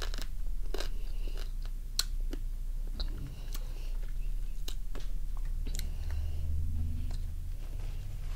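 Person biting and chewing pieces of raw lime-cured crab in the shell: a string of short sharp clicks and crunches of shell with chewing between them.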